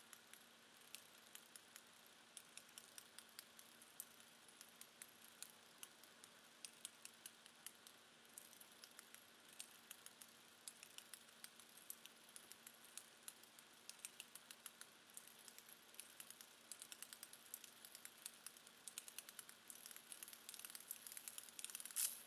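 Brose flip-dot display's dots flipping over in an irregular patter of small sharp clicks. The clicks grow denser toward the end, closing in a brief rush of clicks that is the loudest part.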